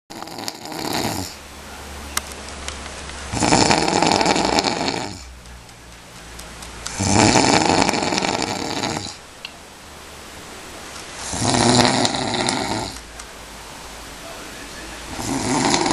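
A sleeping person snoring loudly, one long rasping snore about every four seconds, each lasting about two seconds, with quieter breathing in between.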